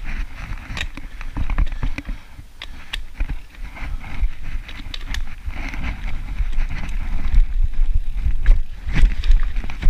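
Mountain bike ridden down a dirt forest trail: tyre noise, rattling of the bike and wind buffeting the microphone, broken by many sharp clicks and knocks over bumps. It grows louder with harder knocks near the end, as the bike rolls onto a wooden plank boardwalk.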